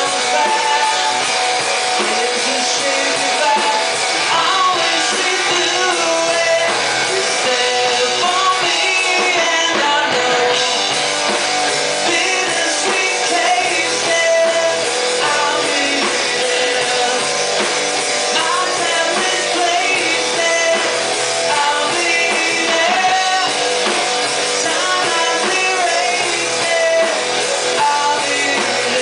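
Live rock band playing: distorted electric guitar, electric bass and drum kit, with a male voice singing over them.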